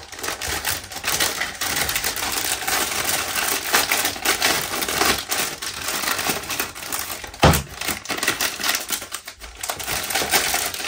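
Clear plastic accessory bags crinkling and rustling as they are handled and opened, with many small clicks and rattles of the Wi-Fi antenna parts inside them. One sharp knock about two-thirds of the way through.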